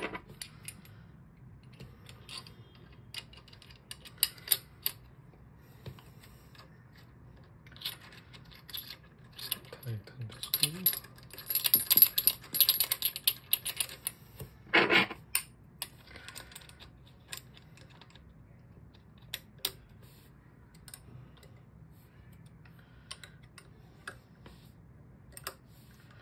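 Metal parts of a burr coffee grinder being fitted together by hand: scattered light clicks and clinks of metal on metal, busiest from about eight to fifteen seconds in, with one louder clack around fifteen seconds.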